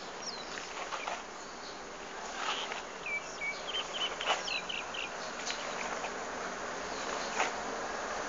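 Outdoor ambience: a steady hiss with a run of short, high-pitched chirps about three seconds in, and a few faint clicks.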